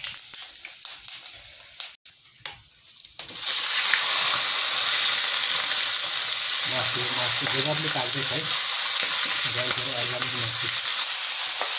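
Chicken pieces frying in hot oil in a wok, stirred with a spatula. After about three seconds of light clicks and crackles, a loud sizzle starts suddenly and runs on steadily.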